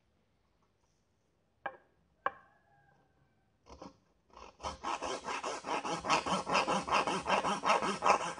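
A fine-bladed hand fret saw cutting a wooden popsicle stick held in a clamp. Two sharp clicks come about two seconds in, then a few short strokes, and from about halfway quick, even back-and-forth sawing strokes.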